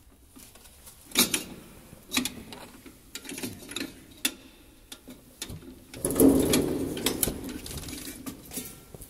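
Handling noise from a phone held against a jacket and clothing: sharp knocks and clicks, with a longer stretch of loud rubbing and rustling about six seconds in.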